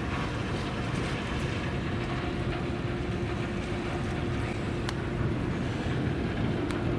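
Steady low rumble with a constant droning hum of waterside machinery or a passing vessel's engine, with a few small clicks.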